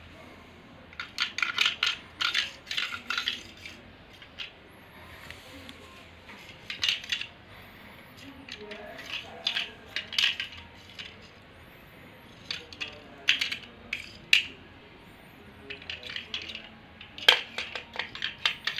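Small hard object clattering and clinking in irregular bursts as a playing cat bats and knocks it about, with quiet gaps between the bursts.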